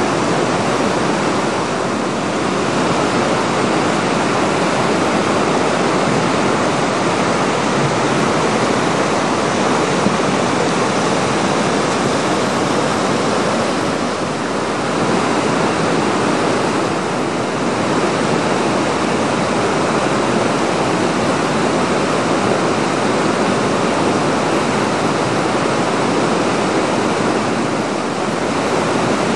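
Whitewater river rapids rushing: a loud, steady noise of churning water.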